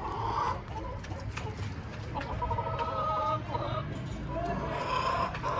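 Chickens clucking, with drawn-out calls near the start, a longer one about two to three seconds in, and another near the end.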